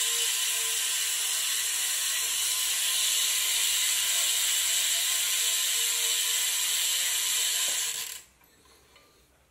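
Entidade Paimon BMX cassette hub freewheeling as the rear wheel is spun by hand: its six spring-loaded pawls click so fast they blur into a steady ratcheting buzz. This is the hub's stock, unmodified sound. It cuts off suddenly about eight seconds in.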